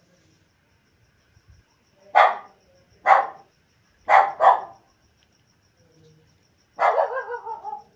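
A dog barking: four short barks, the last two close together, then a longer bark near the end that falls in pitch.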